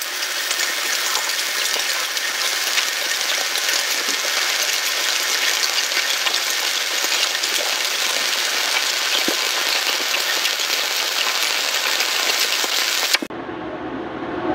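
Shielded metal arc (stick) welding with a 1/8-inch 7018 electrode on reverse polarity at 140–160 amps: the arc sizzles and crackles steadily as the bead is laid, then stops abruptly near the end.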